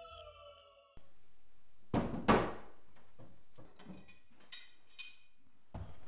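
Ambient music fades out. Then, in a quiet room, two sharp wooden thunks about 2 s in, followed by a run of light clicks and rattles from something being handled.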